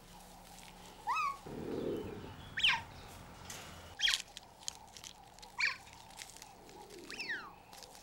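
Cheetah cub chirping: a series of about five short, high, bird-like calls, roughly one every second and a half, most of them falling in pitch.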